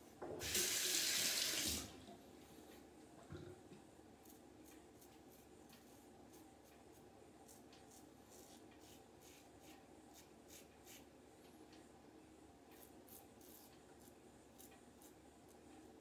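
A tap runs briefly for just over a second, about half a second in, as the razor is rinsed. Then come many faint, short scrapes of a Rockwell 6S safety razor cutting lathered stubble, stroke after stroke.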